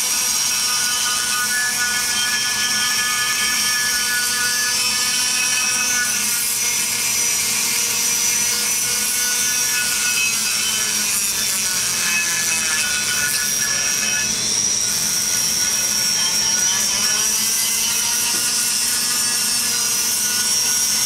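Flex-shaft rotary grinder spinning a bit inside the exhaust port of an aluminium LS cylinder head, grinding the rough bumps out of the port. A steady high whine whose pitch sags and comes back up about two-thirds of the way through as the bit bears into the metal.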